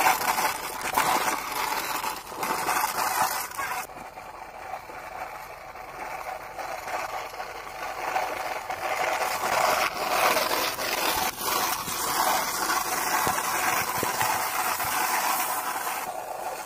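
Plastic toy dump truck pushed by hand over dirt and dry straw: its wheels scraping and rattling, with its load of stones rattling in the tipper and the straw rustling. The sound softens for a few seconds from about four seconds in.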